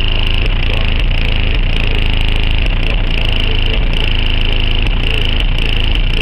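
A car audio system with Sundown Audio subwoofers playing bass-heavy music at very high volume, heard from outside the van. Deep bass notes repeat in a steady rhythm over a constant harsh, buzzy upper tone.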